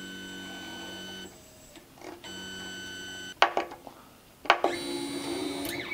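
Stepper motors of a Malyan (Monoprice Select Mini) 3D printer driving the print head and bed: a steady pitched whine in three runs of about a second each, with two sharp clicks between the second and third.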